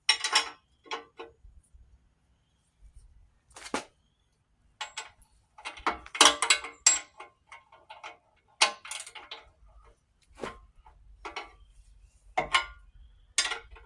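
Hand tools clinking and clanking against steel: a big wrench and socket ratchet working on the excavator bucket's bolts, in irregular sharp metal knocks.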